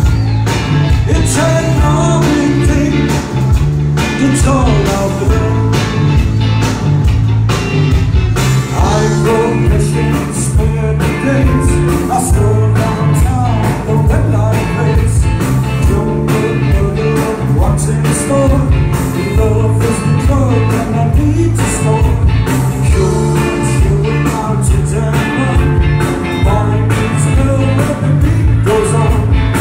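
Live rock band playing a song: a male singer over electric bass, electric guitar and drums with a steady beat. Recorded on a mobile phone in the audience.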